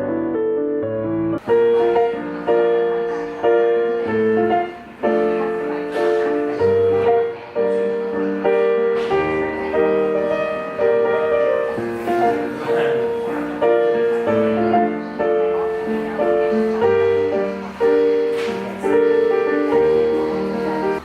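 Piano being played: a slow piece with notes and chords struck about once a second, each ringing out and fading.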